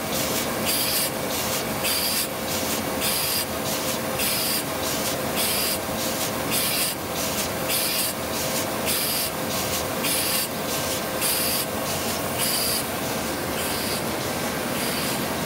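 Pama Octans 126WS paper machine running in production, a steady mechanical hum under a rhythmic rasping hiss that repeats a little under twice a second. A stronger hiss comes about once a second.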